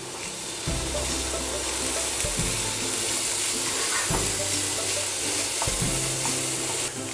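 Diced onion, capsicum and tomato sizzling steadily in oil in a non-stick frying pan while a wooden spatula stirs them, with background music underneath.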